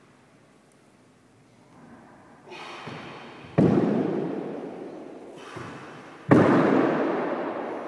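Dumbbells and hands thudding down on a hardwood floor as the crawl moves forward: two loud thuds a few seconds apart, with softer knocks before each. Each thud rings on in a long room echo.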